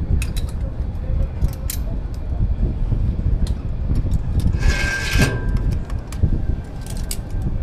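Wind rumbling on the microphone of a handheld camera at the open edge of a high tower platform, with scattered metallic clicks from jump-harness hardware and a brief hiss about five seconds in.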